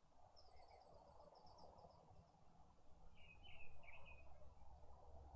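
Faint night-time garden ambience. A short, high, rapidly pulsed trill starts about half a second in, and a brief chirping call comes past the three-second mark, both over a low steady hum.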